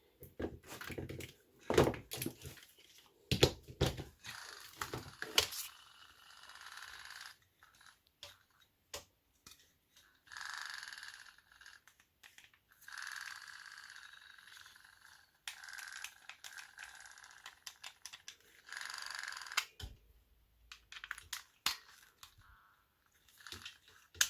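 Clicks and knocks of a small plastic electric breast pump and its power cable being handled. Then come several short stretches of a hissing whir, one to two seconds each, that start and cut out. This is a pump that works only fitfully and is about to stop working.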